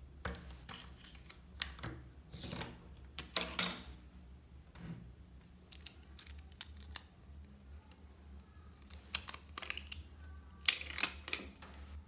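Tiny magnetic balls clicking and rattling against one another in short, irregular clusters as hands split, press and reshape a block built of them.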